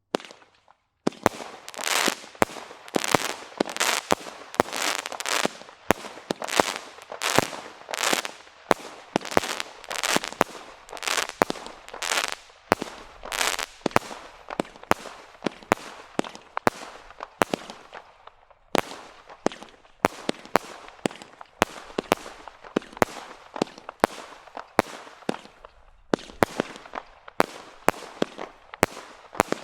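Black Cat "Apocalypse" firework going off in a long volley of shots starting about a second in, roughly two a second. Each shot is a sharp bang followed by a short crackling hiss.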